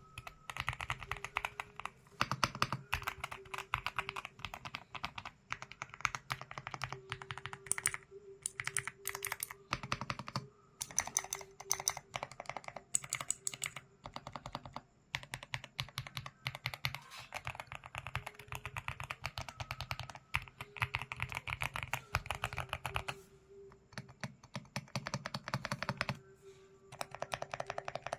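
Typing on a Zuoya GMK67 mechanical keyboard: rapid runs of key clacks, broken by a few brief pauses.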